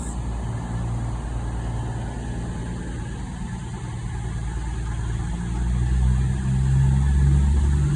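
Diesel train engines running at a station platform with a steady low hum, growing louder about five and a half seconds in.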